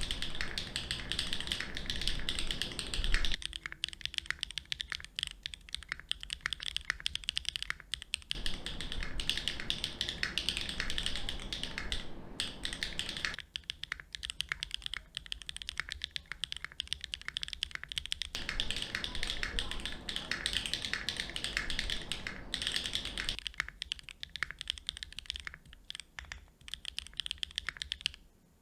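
Fast, continuous typing on a Qwertykeys Neo65 Core Plus 65% custom mechanical keyboard, a dense run of key clacks with a couple of brief pauses.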